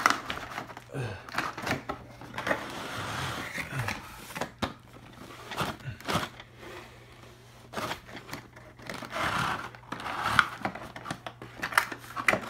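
Cardboard toy box being opened and its plastic packaging tray handled: irregular rustling and scraping of cardboard and plastic, with scattered sharp clicks and knocks.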